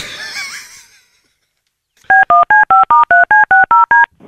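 Telephone touch-tone keypad dialling a number: about a dozen quick beeps, each a two-note chord, while a phone call is redialled. A short burst of noise comes first, near the start.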